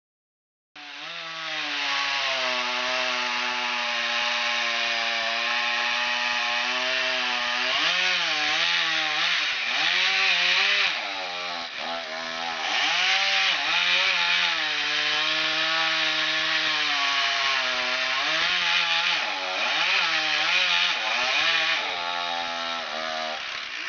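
Gas chainsaw cutting wood, its engine pitch repeatedly rising and falling as the throttle and load change.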